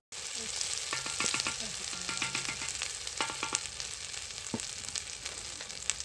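Tomato paste, onions and beef bones sizzling steadily in a cast-iron pot, stirred and scraped along the bottom with a wooden spoon while the paste is seared.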